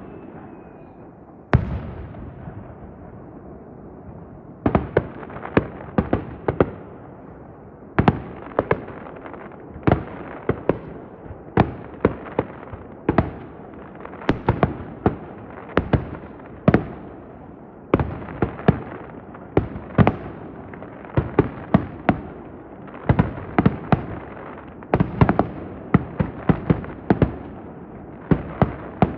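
Aerial fireworks shells bursting in a finale barrage: a single sharp bang about a second and a half in, then from about five seconds in a rapid run of bangs, several a second, each trailing off in a rumbling echo.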